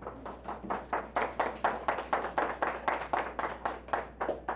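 Hand clapping from a small group of people, with distinct claps coming about five a second, building over the first second and dying away near the end.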